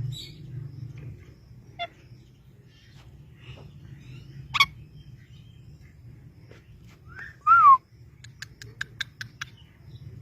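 Pet parrot calling: a couple of sharp squawks, then a loud short whistle that rises and falls, followed by a quick run of about eight clicks. A steady low hum underneath.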